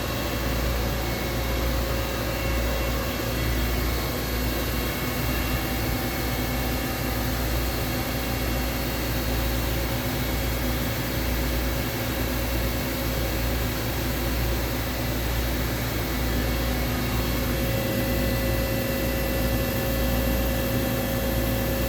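DN Solutions DNM 5700S CNC vertical machining center running under power: a steady machine hum with several constant whining tones over a low rumble. One of the whines grows stronger about seventeen seconds in.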